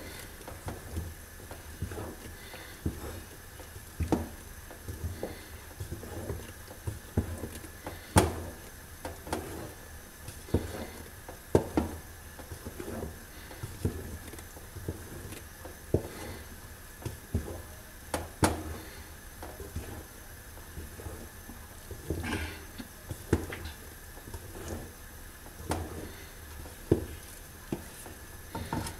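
Wooden spoon stirring a thick sesame and hazelnut paste in an aluminium pot, knocking and scraping against the pot's sides about once or twice a second, with a few louder knocks.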